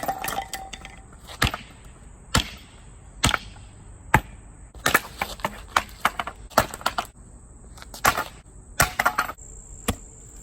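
Sledgehammer blows on hard wood: about a dozen sharp impacts at uneven intervals, some followed by a short splintering crackle.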